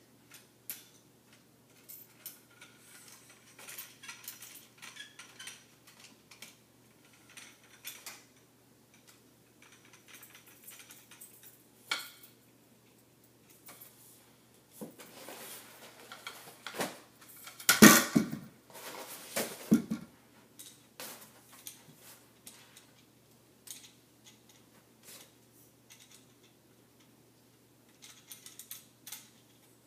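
Backdrop stand's crossbar rods and upright tube being taken apart and handled: scattered clinks, taps and knocks of the parts, with a louder clatter a little past the middle.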